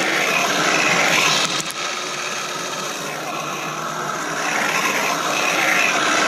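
Kyosho Blizzard RC snow vehicle running on 3S LiPo power: its electric motor and geared drivetrain whir, with the tracks churning, rising and easing with the throttle.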